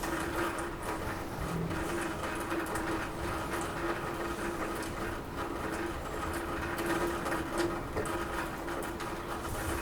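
Rain falling on a roof: a dense, steady patter of drops with scattered sharper taps, over a steady low hum.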